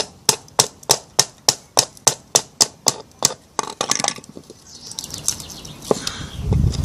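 A hammer tapping rapidly on the spine of a knife to drive the blade into a log, about three even strikes a second, stopping about three seconds in. A low rumble comes in near the end.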